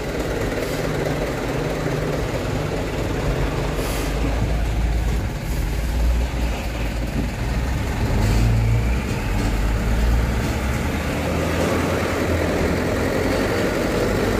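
Truck engine running steadily while driving, heard from inside the cab, with road noise.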